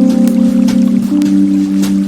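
Slow ambient relaxation music with long held notes, laid over running water with a few sharp drip-like ticks.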